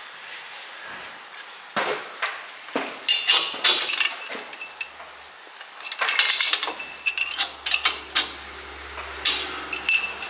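Steel clinking and clanking with a ringing edge as the differential carrier, with its ring gear and bearings, is worked out of a Dana 30 front axle housing. Irregular sharp metal knocks come in clusters, about three to four seconds in, six to seven seconds in, and again near the end.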